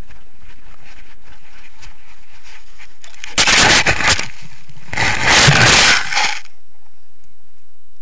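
Two loud bursts of rustling and scraping on an action camera's microphone as it is handled and set down in snow: the first about three and a half seconds in, the second longer one about a second later. After that the background noise drops away.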